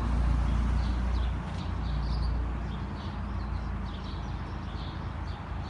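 Small birds chirping again and again over a steady low rumble, which is louder for the first second or so.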